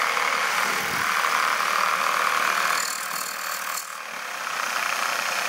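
Compressed air hissing steadily from a loose air line fed by a small compressor. About three seconds in the hiss drops, with a few handling clicks as the line is brought to the locomotive's air intake, then it resumes more quietly.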